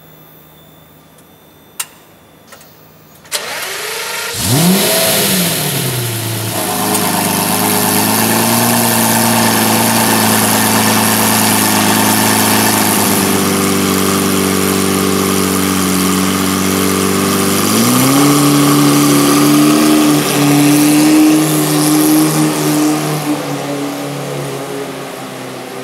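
Lamborghini Murciélago LP670-4 SV's V12 through an iPE Innotech exhaust starting up: after a couple of clicks, it cranks about three seconds in, catches with a quick rev flare and settles into a steady idle. About 18 s in the idle steps up higher and louder, easing off near the end.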